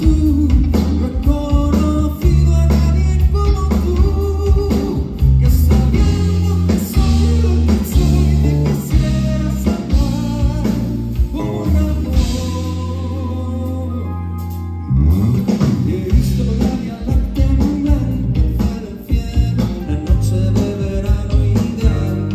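A live worship band plays with electric guitar, bass, drums and keyboards while a male lead vocalist sings into a microphone. About twelve seconds in, the band holds a long low note that fades away, and the full band comes back in about three seconds later.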